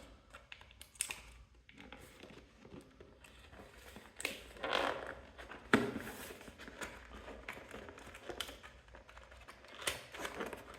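A trimmer's retail packaging being opened by hand: irregular crinkling, scraping and tearing, with a sharp knock about six seconds in.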